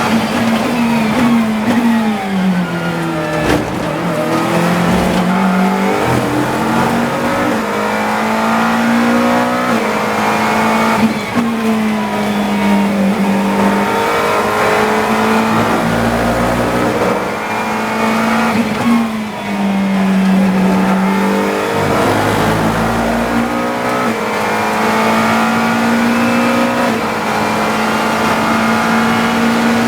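GT3 race car engine heard onboard at racing speed: a quick run of downshifts under braking near the start, then the pitch climbing and stepping through gear changes as it accelerates out of corners, repeated through the lap. A deep low rumble comes in twice in the second half.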